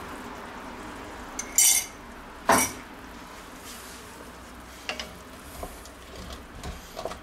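Kitchenware clatter: a short ringing clink of a metal spoon against a ceramic mug about one and a half seconds in, a sharp knock a second later, then soft scrapes and taps of a wooden spatula stirring chopped vegetables in an enamelled pot.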